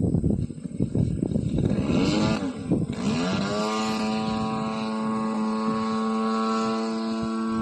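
The 55cc gas engine of a large-scale Pitts M12S model plane, running with its propeller. It starts rough and uneven, swings up and down in pitch a couple of seconds in, then settles from about three seconds in to a steady, even drone.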